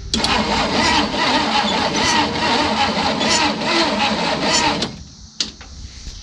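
Starter cranking the 1964 Studebaker ZIP-VAN's engine on a jump pack for about five seconds without it firing, then stopping, with a click just after. The owner suspects the ignition points need replacing or are stuck from sitting.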